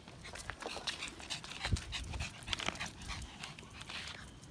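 Small dog panting close to the microphone, mixed with irregular short clicks and scuffs.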